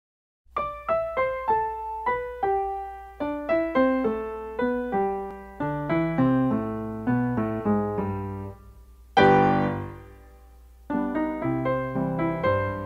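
Background piano music: a run of single notes from about half a second in, a loud chord at about nine seconds, a short pause, then the playing resumes.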